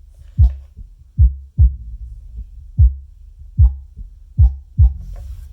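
Jamo Sub200 8-inch powered subwoofer playing a bass test track: loud, deep thumps every half second to a second over a steady low bass rumble.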